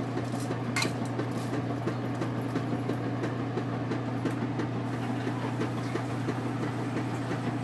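Steel pot of rice and hot liquid bubbling on the stovetop just after the rice goes in, over a steady low hum, with a couple of light clinks about a second in.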